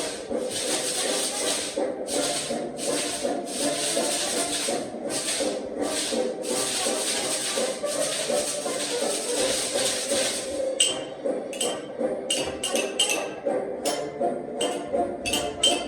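Noise-band percussion played along with recorded music: repeated long swishing strokes, then from about eleven seconds in, short quick clicking strikes.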